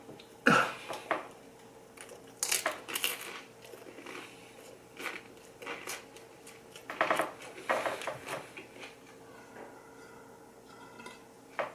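Eating sounds in scattered bursts: chewing, biting and mouth noises, with a few light clinks.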